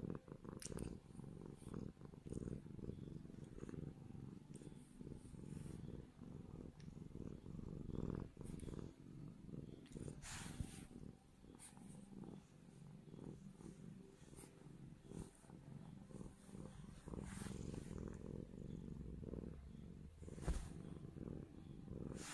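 A Dragon Li (Chinese tabby) cat purring close to the microphone, a steady low rhythmic rumble with a few faint soft clicks.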